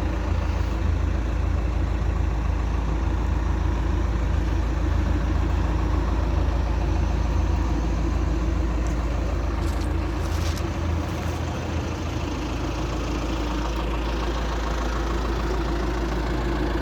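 Caterpillar 444 backhoe loader's diesel engine running steadily at idle, with a deep low note that eases slightly about two-thirds of the way through.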